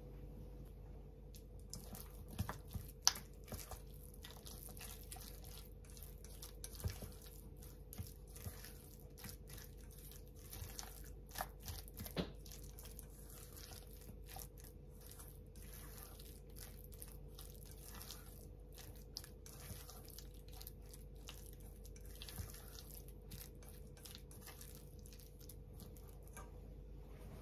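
Silicone spatula folding mashed tofu and persimmon in a stainless steel bowl: faint wet mixing with scattered light clicks and taps against the bowl, a few sharper taps in the first half, over a faint steady hum.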